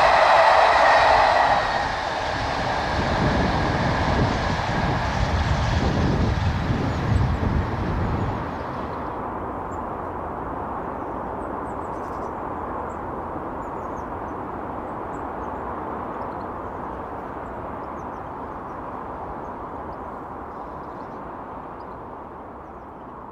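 Passenger train rushing past at speed on the rails: a loud rush and rattle of the coaches' wheels for the first couple of seconds, then a heavy low rumble for several seconds. After that it turns duller and fades steadily away as the train recedes.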